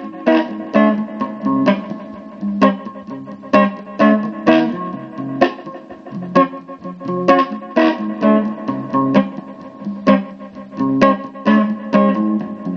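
Guitar chords strummed through an amplifier, one strum about every second, each chord ringing on until the next.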